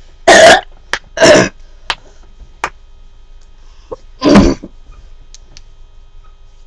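Knuckles being cracked: several sharp little pops spread over a few seconds, among three loud, short bursts of noise.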